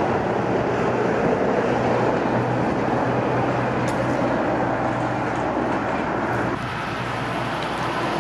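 Steady rumble of motor vehicles with a faint low hum running under it.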